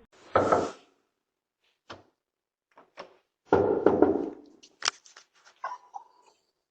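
Two loud thumps about three seconds apart, with scattered sharp clicks between and after them.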